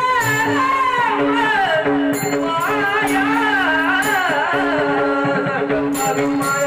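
A voice singing a slow, ornamented devotional melody over a steady held drone note, with light percussion.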